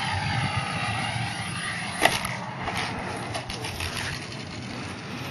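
Electric motor and propeller of a small RC P-40 model plane winding down as it lands, its whine falling away. A sharp knock comes about two seconds in, followed by light clicks and rattles as it rolls out on the runway.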